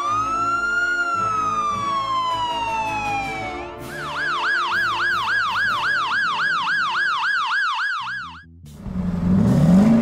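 Police siren, first one long wail rising and then slowly falling, then switching about four seconds in to a fast yelp of about three or four cycles a second, which cuts off near the end. Near the end a lower sound rises and falls in pitch, over quiet background music.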